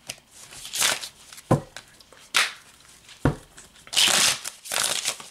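A deck of tarot cards shuffled by hand: a run of short rustling, flicking bursts about once a second, with a couple of sharper snaps.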